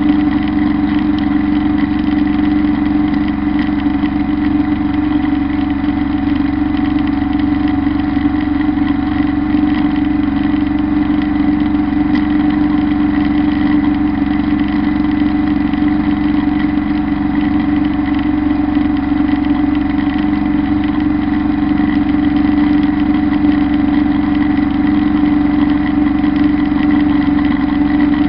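Kubota Bulltra B1-17 compact tractor's diesel engine running steadily at working speed while driving a drum mower through tall grass, with a steady high whine over the engine drone.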